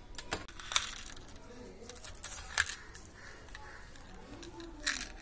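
Small pink plastic ice-lolly-shaped candy case being handled and pulled open: a few sharp plastic clicks and snaps, the loudest about three-quarters of a second in, another near the middle and one near the end.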